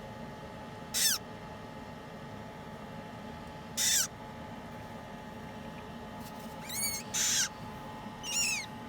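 Newly hatched parrot chick calling: five short, squeaky peeps, each falling in pitch, two of them close together near the end.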